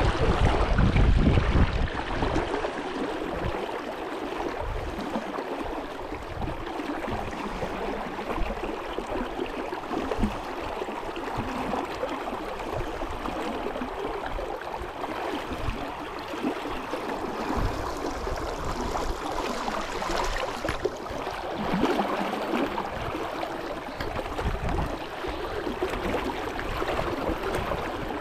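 Steady rushing of a flowing brook, with wind buffeting the microphone for the first couple of seconds.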